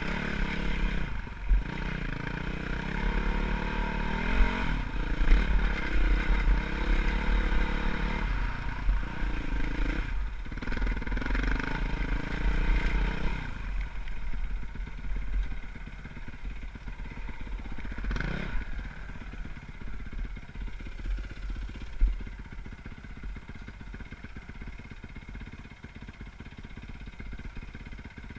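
Dirt bike engine revving up and down as the bike climbs a rocky trail. About halfway through it drops to low revs and runs quieter for the rest.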